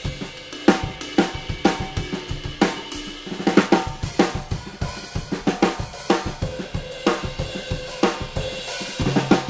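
Drum kit played in a steady groove: kick drum and snare under Zildjian 14" A New Beat hi-hats and K Constantinople cymbals, with a strong accent about once a second.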